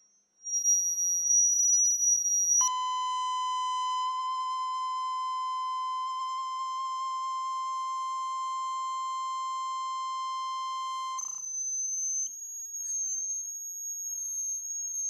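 Steady electronic tones: a high thin whine, replaced about two and a half seconds in by a lower, buzzier steady beep that holds for about eight seconds, after which the high whine returns, wavering slightly.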